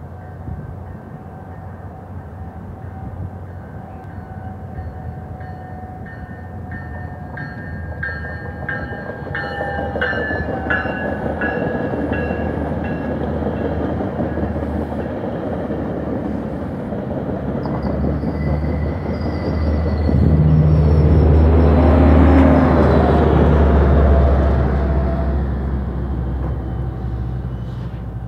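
Metrolink commuter train passing at speed: thin steady high tones over a growing rumble as it approaches, then the noise of the bilevel coaches' wheels going by. It is loudest about 20 seconds in with a deep engine drone as the diesel locomotive pushing at the rear passes, then it fades.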